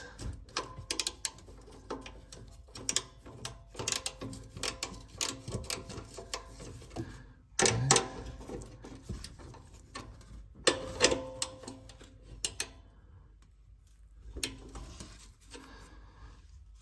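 Socket ratchet clicking in short runs while turning out the 10 mm bolts of a BMW exhaust flap actuator, with scattered metallic knocks of the tool against the exhaust.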